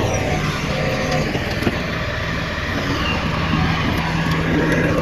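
Heavy diesel earthmoving machinery running, its engine holding a steady low hum.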